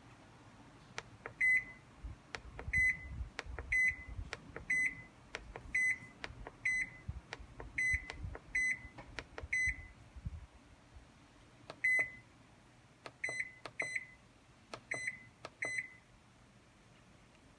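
Haier JW-C55CK washing machine's control-panel buttons being pressed one after another, each press a click followed by a short electronic beep, about fourteen in all at uneven intervals.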